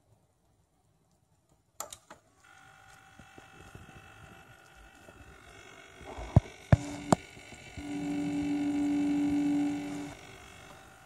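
Corsair H100i GTX water-cooler pump running with a steady mechanical whine after a click. A few sharp clicks come around the middle, then a louder low buzz for about two seconds before it eases back. This is the rattle of the first-batch pump's defective bearings, a defect Corsair has acknowledged.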